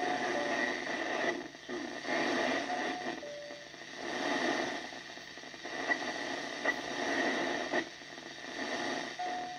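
Receiver audio from a Yaesu FT-102 HF transceiver tuned to 10 m FM: hiss and static that swells and fades. Short two-note beeps, a higher note dropping to a lower one, come in through the static three times: at the start, about three seconds in, and near the end.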